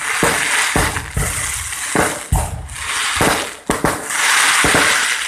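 Fireworks display: aerial shells bursting with sharp bangs, about nine of them, over a continuous crackling of the bursting stars. The crackle thickens into a dense, loud spell about four seconds in.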